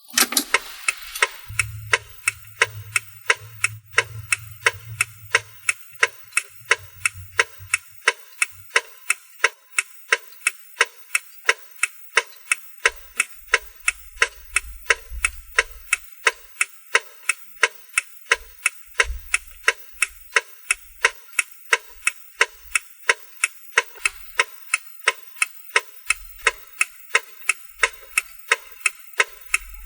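Car turn-signal indicator ticking inside the cabin: a steady, even tick-tock of about three clicks a second as the flasher switches the lamps on and off.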